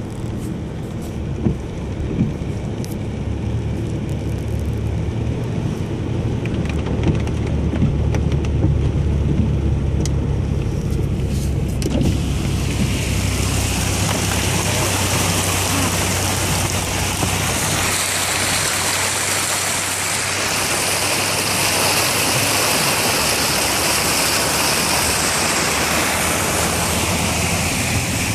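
Land Rover Discovery 3 engine running low and steady, heard inside the cabin as it wades through flood water. About twelve seconds in, a loud, steady rush of water against the body and wheels takes over and carries on.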